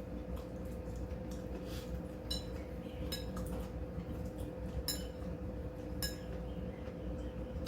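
Cutlery clinking against dishes while eating: about four bright ringing clinks, a little over two, three, five and six seconds in, among smaller clicks, over a faint steady hum.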